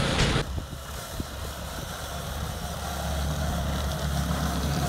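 Small engine of an Arctic Cat Kitty Cat children's mini snowmobile running steadily as it rides a lap over snow. It drops in level about half a second in, then holds a steady low hum.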